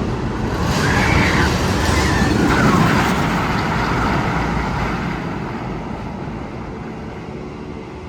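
A loud rushing rumble in the Magnum XL 200's tunnel, with a few short rising-and-falling tones about one and two seconds in. It swells for about three seconds, then fades away steadily.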